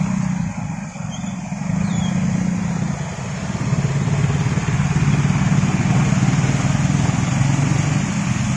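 Motor scooter engines running while riding through floodwater, with a rushing hiss of water spraying off the tyres. The engine note drops slightly and the water rush grows about three seconds in.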